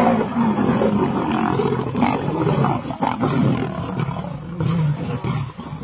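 Lionesses fighting, with loud continuous growling and roaring.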